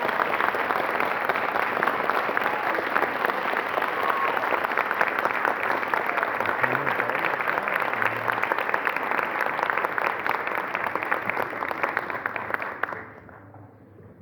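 Theatre audience applauding after a piece, a dense steady clatter of many hands that cuts off about a second before the end, leaving faint room hum.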